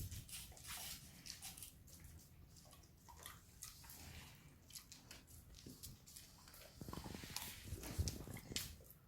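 Dogs eating and licking a soft homemade treat: a run of small wet clicks and smacks, with a few heavier knocks near the end.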